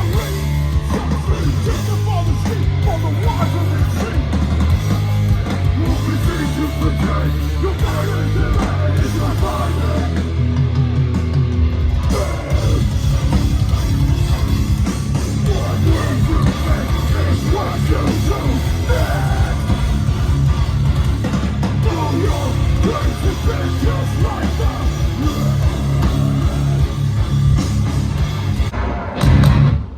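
A heavy band playing live and loud: distorted electric guitars, bass and drums in a dense, continuous wall of sound.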